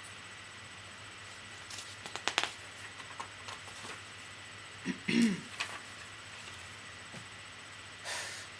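A person's brief mouth and throat noises: a few small clicks, then a short throaty sound like a throat clearing about five seconds in, and a short breath near the end.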